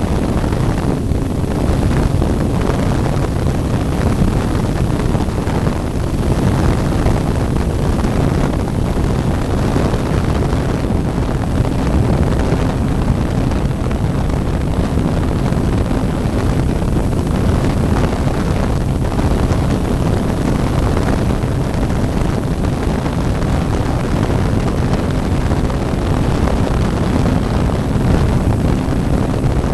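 Model airplane engine and propeller running steadily in flight, heard from on board, with heavy wind rush buffeting the microphone.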